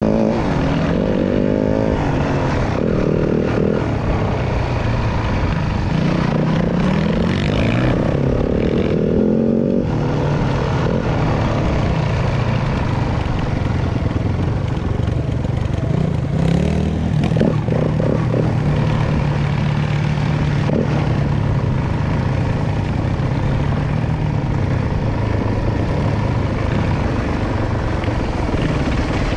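Yamaha WR250F dirt bike's single-cylinder four-stroke engine under way, revving up and down. Its pitch rises and falls repeatedly through the first ten seconds, then it holds a steadier, lower note.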